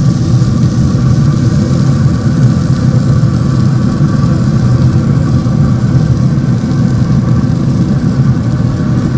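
Steady low mechanical hum of a running motor, holding one pitch with no change in speed.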